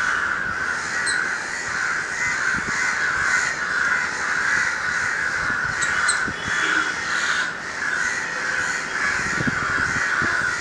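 Crows cawing continuously, the calls running together without a break.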